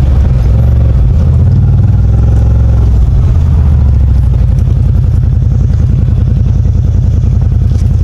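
A CFMOTO ZFORCE 950 HO Sport side-by-side's engine running steadily, with its note shifting about halfway through.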